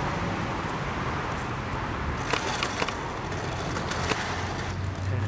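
Light metallic clicks and clinks of a motorcycle roller chain being handled, a few scattered ones from about two seconds in, over a steady low hum.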